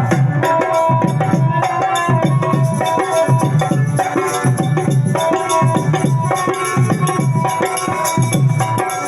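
Accompaniment music with a steady drum beat under a held, sustained melody.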